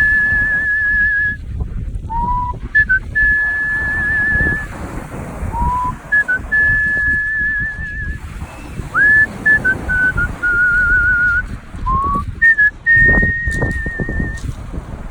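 Artistic mouth whistling: a melody in phrases that each leap up from a low note into a long note held with a wavering vibrato. A steady low rumble of background noise runs underneath, with a few brief knocks a little before the end.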